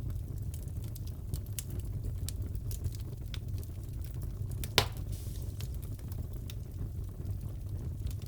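Fireplace crackling: a steady low rumble of burning logs with scattered small crackles and one louder pop a little past the middle.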